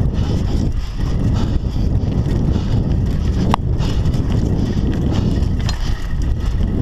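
Scott Scale 960 hardtail mountain bike riding fast down a dry dirt singletrack: a steady low rush of tyres on dirt and wind on the microphone, with one sharp click about three and a half seconds in.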